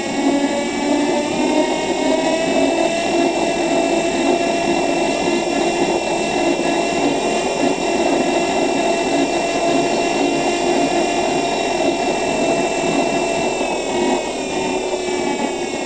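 Electric city bus running: the traction motor and its electronics whine in several steady high tones over road and running noise, one tone rising slightly in pitch in the first few seconds, then holding, with a change in the tones near the end.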